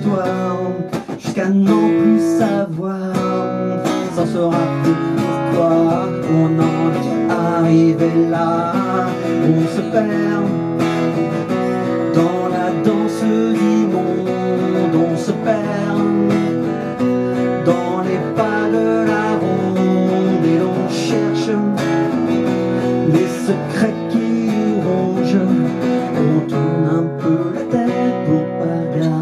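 Instrumental break of a song, with acoustic guitar strummed and picked throughout.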